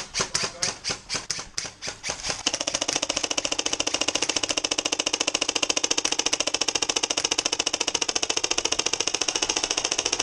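Airsoft gun firing: a few uneven single shots, then from about two and a half seconds in a long, steady full-auto burst of rapid even shots with the gun's motor whirring underneath.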